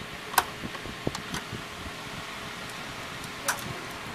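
A few sharp clicks and knocks of hard plastic as the opened Epson L120 printer's frame and main board are handled, the loudest about half a second in and another near the end. Under them runs a steady fan-like hiss.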